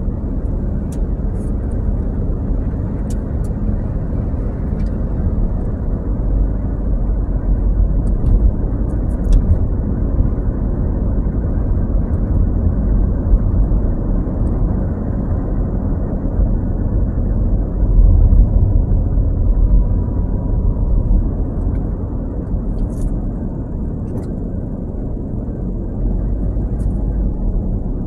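Steady low road and engine rumble inside a moving car's cabin, swelling briefly about two thirds of the way through, with a few faint ticks.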